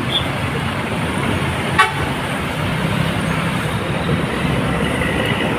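Steady roadside traffic noise from passing buses and other vehicles: engine rumble and tyre noise. A brief, sharp blip comes about two seconds in.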